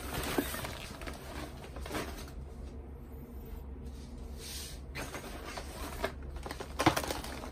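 Handling noise of a nylon backpack being moved on a desk: irregular fabric rustling and scrapes, with a few light knocks near the end, over a steady low hum.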